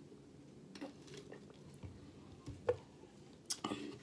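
A person drinking from a bottle close to the microphone: faint swallowing and small mouth clicks, a sharper click a little past halfway, and a short louder mouth noise near the end.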